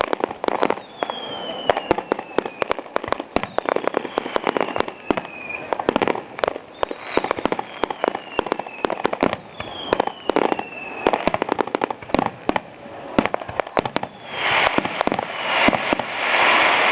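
Fireworks going off: rapid sharp cracks and pops, with several whistles that fall slowly in pitch, turning into a dense, loud crackle about fourteen seconds in.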